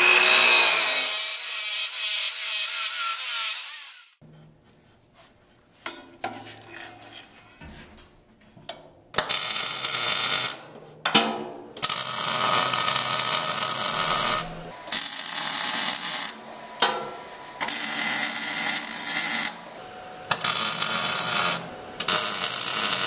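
A DeWalt abrasive chop saw spins up and cuts through 2x2 steel tubing for about four seconds, then stops. After a few seconds of light knocks, a welding arc runs in a series of short bursts, one to three seconds each, tacking the tubing stiffener in place.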